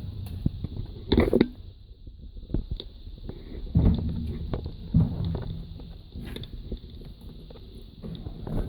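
Footsteps and scuffing on a debris-strewn tunnel floor, with a few heavy thuds of handling noise about one, four and five seconds in, over a steady faint high hiss.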